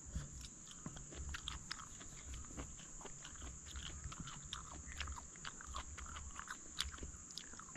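Close-up chewing of a mouthful of ripe varaka jackfruit: small irregular wet clicks and smacks. A steady high insect buzz runs behind it.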